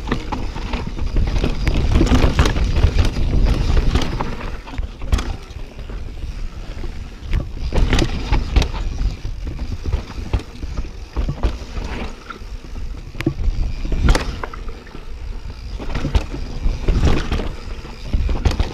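Mountain bike riding down a wet trail: a steady rumble of tyres and air, broken by frequent sharp knocks and rattles from the bike over bumps.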